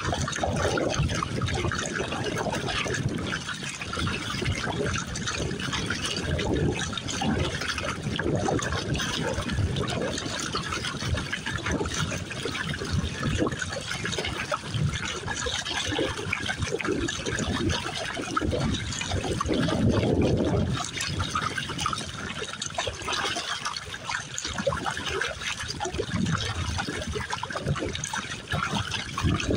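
Water splashing and sloshing around a Pelican Argo 100XR kayak as it is paddled through light chop, with irregular surges as the paddle blades dip and pull.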